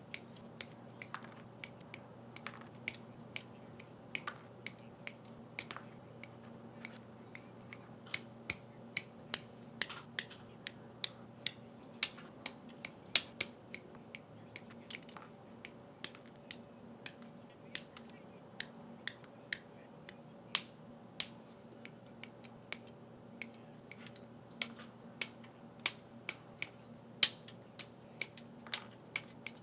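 Sharp, irregular plastic clicks and snaps, about two a second: Gunpla plastic model kit parts being clipped from their runners and pressed together. A faint steady hum lies underneath.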